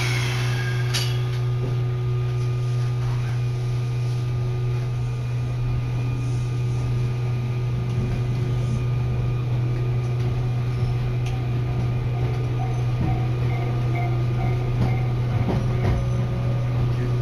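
Inside a Matsumoto Electric Railway electric train in motion: steady running noise with a strong low hum and faint steady motor tones, and a short falling squeal right at the start.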